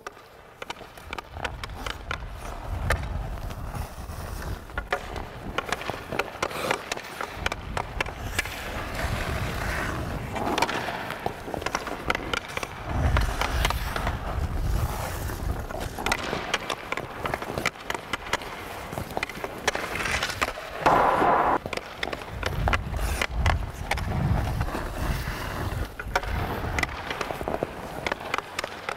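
Hockey skate blades carving and scraping on rink ice while a stick taps and pushes a puck, with many short clicks. One louder, longer edge scrape comes about two-thirds of the way through.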